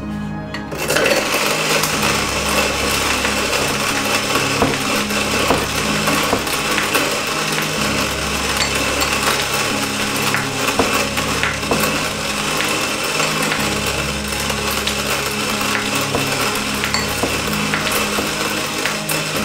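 Weber HG-2 hand grinder being cranked, its burrs crunching through coffee beans: a steady gritty grinding full of small cracks, starting about a second in.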